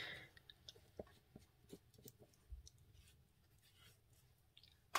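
Near silence with a few faint light clicks and taps in the first half, as a wooden-mounted rubber stamp is handled and wiped clean of ink with a baby wipe.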